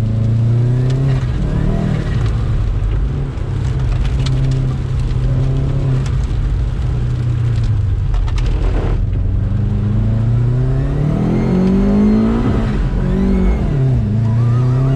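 Turbocharged GC8 Subaru Impreza flat-four engine revving hard under throttle, its revs climbing and falling repeatedly through the corners. The engine note cuts off sharply about nine seconds in as the throttle is lifted, then climbs again several times.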